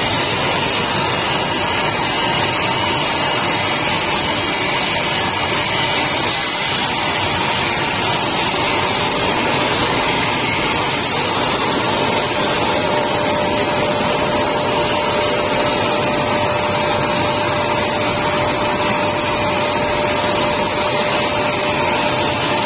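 Automatic glass edge polishing machine running: a loud, steady mechanical din with a constant whine through it.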